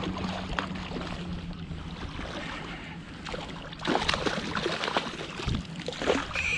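A hooked fish splashing and thrashing at the surface of shallow water as it is played in close, the splashes coming thick from about four seconds in.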